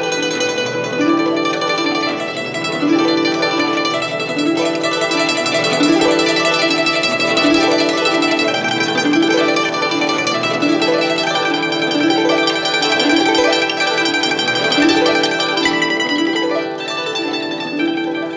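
Instrumental background music on plucked strings, a short figure of notes repeating over and over.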